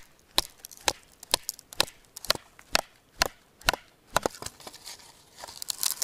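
Batoning kindling: a wooden baton knocking on the spine of a knife driven into a stick of firewood, about two knocks a second, some ten in all. Over the last second or so, splintering and cracking as the split wood comes apart.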